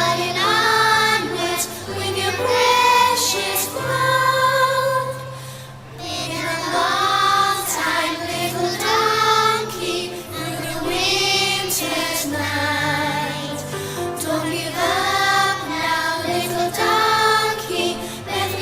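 A group of young children singing a song together over an instrumental backing track, with a short break between phrases about five seconds in.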